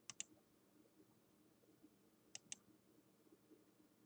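Faint computer mouse clicks in near silence: a quick pair right at the start and another pair about two and a half seconds in.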